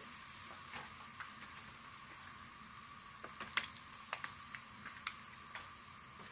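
Squid frying in a wok with soy sauce just added, sizzling faintly with scattered small pops and crackles, the busiest cluster about three and a half seconds in.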